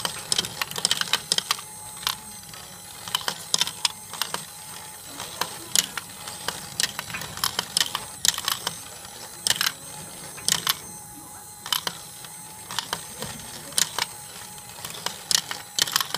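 Steel ball bearings clicking and rattling as they roll and drop through a 3D-printed ABS plastic spiral marble machine lifted by a gear wheel: irregular sharp clicks, often in quick clusters, over a faint steady whine.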